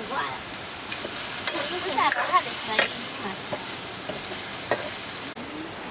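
Meat frying and sizzling in oil in an iron wok, stirred with a metal ladle that scrapes and clinks against the pan several times.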